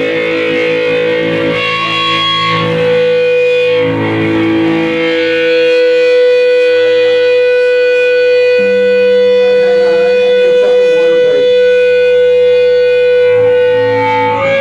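Distorted electric guitar played live and loud, holding long ringing chords that change every few seconds.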